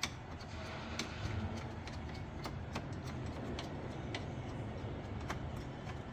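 A few sharp metallic clicks, irregularly spaced about a second apart, from a 10 mm socket wrench working the car battery's hold-down bolt loose, over a steady low hum.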